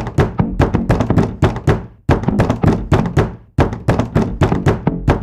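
A percussive music beat: rapid sharp drum-like hits, about four a second, over a low bass, played in short phrases that break off and start again.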